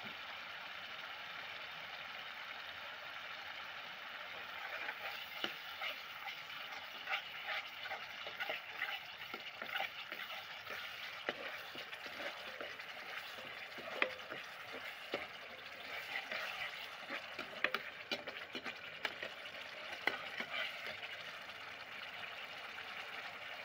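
Spiced masala sizzling and bubbling in a kadhai on the stove. From about four seconds in, a metal slotted spoon scrapes and taps against the pan as the masala is stirred.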